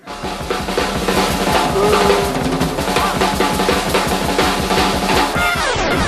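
Music driven by a drum kit, playing a fast, steady beat that stops shortly before the end.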